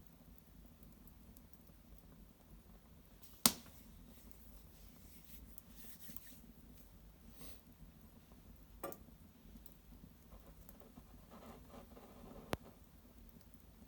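Small fire of dried maple brushwood crackling faintly, with three sharp pops from the burning wood, the first and loudest about three and a half seconds in, others near the middle and near the end.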